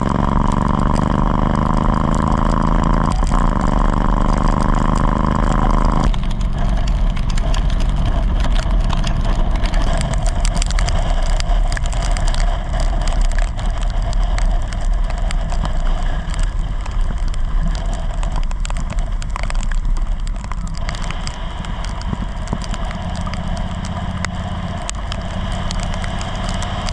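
Motorcycle engine running while under way, with a clear pitch that shifts slowly for about six seconds; then the sound changes suddenly to a steady rush of wind and rain noise over the engine.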